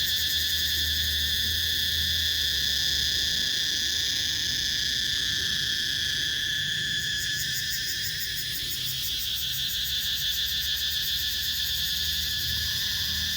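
Loud, steady chorus of night insects calling from the trees: a dense shrill at several pitches at once, some with a fast pulsing.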